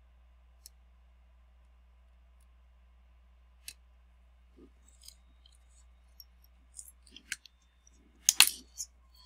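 Small metal hand tools clicking and tapping against an iPhone display assembly and the bench mat: a few light, scattered ticks, then a louder clatter of several sharp clicks about eight seconds in.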